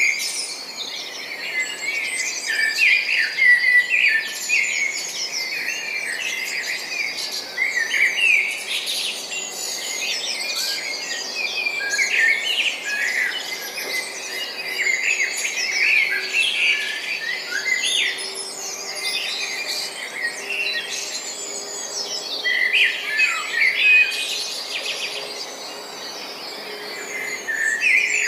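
Many small birds chirping at once in a dense chorus of short, overlapping high chirps and trills, easing briefly near the end.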